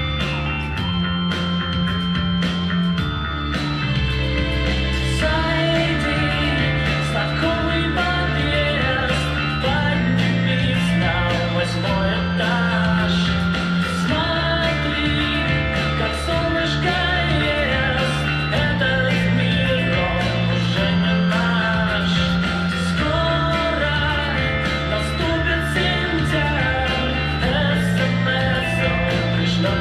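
A music track with electric guitar and a sung melody over a steady bass line, played loud.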